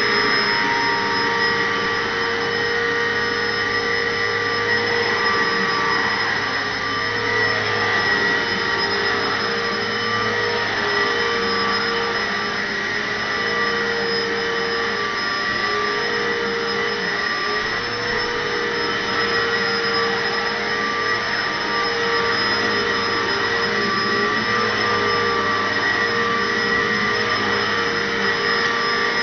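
Upright bagless vacuum cleaner running steadily on carpet, a continuous motor whine with a few steady tones. The lower tone wavers slightly in pitch as the vacuum is pushed back and forth.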